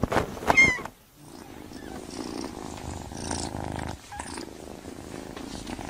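A kitten purring steadily and close up, after a couple of brief, louder sounds in the first second.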